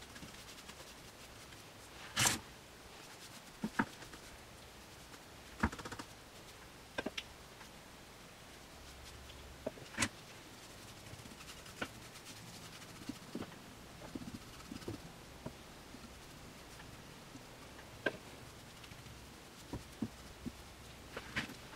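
Scattered light knocks and taps as wooden table legs, a paintbrush and a paint can are handled and set down on a wooden workbench during brush painting, the loudest knock about two seconds in.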